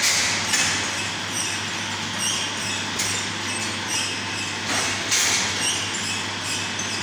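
Ice candy production line running: a steady low hum with irregular metallic clicks and clanks from the chain-driven mould-plate conveyor, about twice a second. Two short hisses, one at the start and another about five seconds in.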